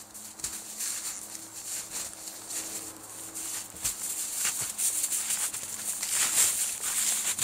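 Snowshoes crunching through snow step by step, getting louder as the walker comes closer.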